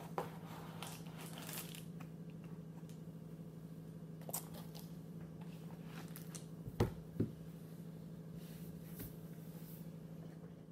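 Crinkling and rustling of an aluminium-foil pot cozy being handled and set down over a titanium mug on a metal tray, with a few light clicks and two sharp knocks in quick succession about seven seconds in. A steady low hum runs underneath. This is the mug being sealed in the cozy to finish steam baking.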